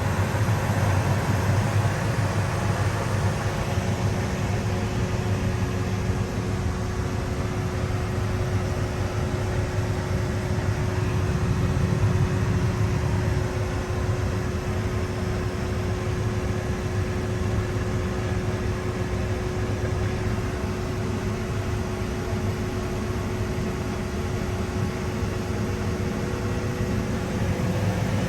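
Engine of farm machinery started up and running steadily with a low drone and a steady whine, run to test whether tightening a loose, leaking fitting has stopped the leak. Near the end the whine fades and a faint rising tone comes in.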